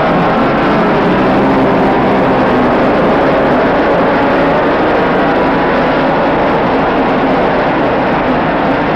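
A pack of 125cc and 250cc racing motorcycles running together at high revs: many engine notes overlap and waver in pitch, steady in level.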